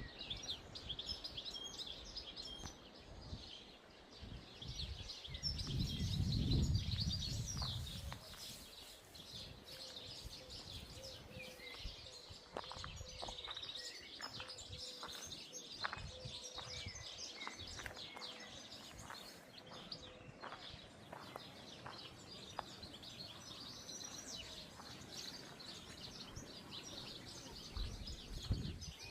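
Wild birds chirping and singing continuously, many short high calls overlapping. A gust of wind rumbles on the microphone about five to eight seconds in, the loudest moment.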